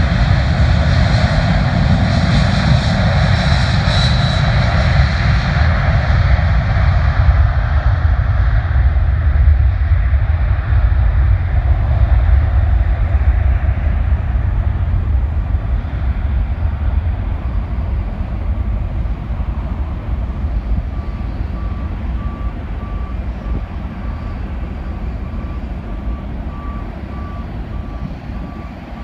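Boeing 747's four jet engines running at high power as it rolls away down the runway. The loud roar loses its high edge over the first several seconds and fades to a low rumble. From about two-thirds of the way in, a vehicle reversing alarm beeps steadily.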